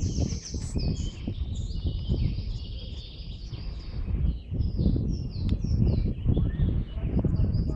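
Small birds chirping and singing repeatedly in the forest, in short high calls and trills, over a low, uneven rumble.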